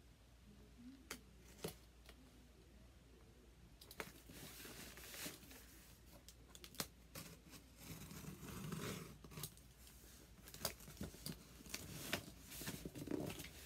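Box cutter slitting the tape on a cardboard box, with scraping, tape tearing and cardboard rubbing. A couple of sharp clicks come first, then the cutting and tearing run on with many small clicks.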